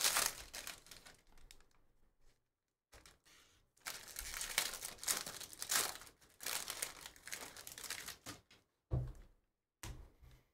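Foil wrapper of a Bowman Draft Super Jumbo baseball card pack being torn open and peeled back, crinkling in two stretches. Two dull thumps follow near the end as the stack of cards is handled.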